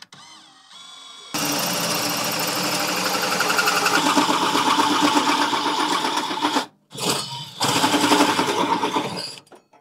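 Cordless drill with a hole saw cutting a large hole through the sheet-metal side wall of a battery conduit box, a harsh grinding cut. It starts softly, bites in hard after about a second, stops briefly past the middle, then cuts again until it breaks through near the end.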